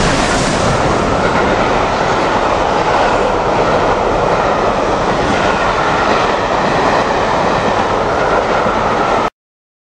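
Coaches of an express train passing close by at speed: a loud, steady rush of wheels on rail. The sound cuts off suddenly about nine seconds in.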